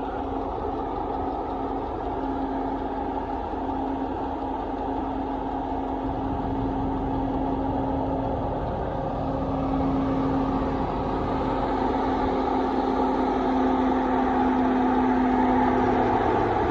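Mercedes-Benz M119 V8 engine running steadily at idle with a ticking noise. The owners have ruled out the drive belt and suspect the hydraulic valve lifters.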